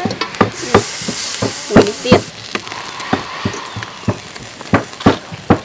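Whole quails grilling on a wire rack over charcoal, sizzling with sharp, irregular pops and crackles. A louder hiss swells from about half a second to two seconds in.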